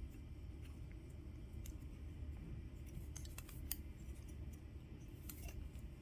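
Faint scattered clicks and small handling noises as fingers work a tiny camera wire-harness connector into a Caddx Vista unit, over a low steady hum.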